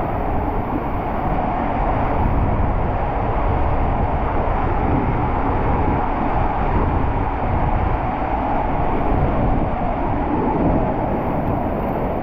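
Steady rushing and rumbling of water and a rider sliding down a water slide.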